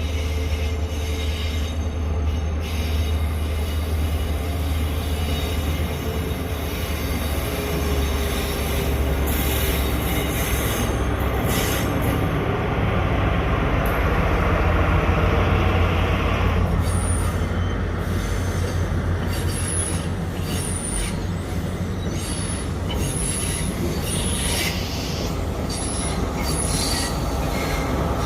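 Train running on the rails with a steady heavy rumble. Short high-pitched squeals from the wheels repeat through the second half.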